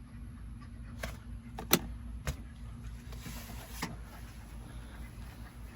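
A few short, sharp clicks and knocks, the loudest about a second and a half in, over a steady low hum.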